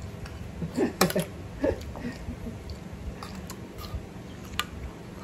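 Metal spoon clicking and scraping against a ceramic plate while a man eats, with chewing and a couple of short hums from his throat about a second in.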